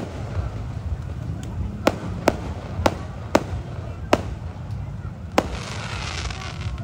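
Aerial fireworks bursting overhead: about seven sharp bangs at uneven intervals, with a hissing near the end.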